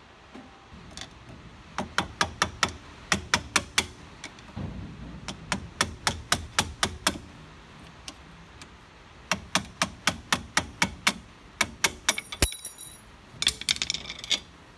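Ratchet wrench clicking in quick runs of about four or five clicks a second, with short pauses, as it turns the bolt on the brake hose bracket of a front strut. Near the end comes a short ringing metallic clink and a brief rattle.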